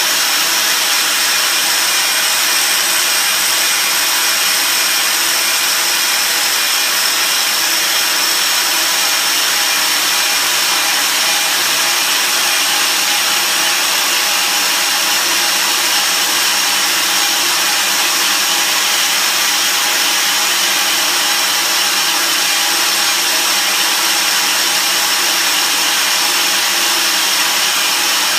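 KRAIS PanelMill-PF tube-end milling machine running steadily, its three-insert carbide head milling Inconel weld cladding off the end of a 2.5-inch boiler tube. A steady whine at an even level, with no breaks.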